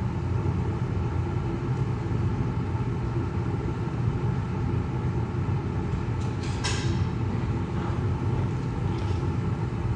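Steady low machine hum from shop equipment running, with one brief clink about two-thirds of the way through.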